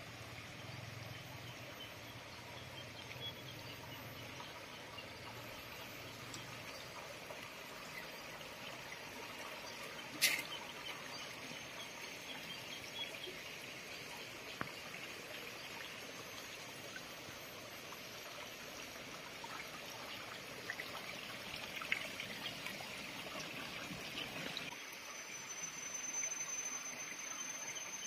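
Faint outdoor ambience of water trickling in a shallow stone-lined drainage channel. There is a single sharp click about ten seconds in, and a steady high insect whine starts near the end.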